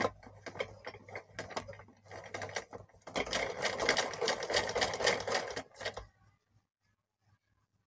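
Sewing machine stitching gota lace onto a fabric strip. It runs in short, uneven spurts at first, then steadily for about three seconds, and stops about six seconds in.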